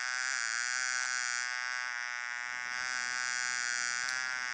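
Steady, continuous buzzing of a bee, a sound effect with a slight waver in pitch.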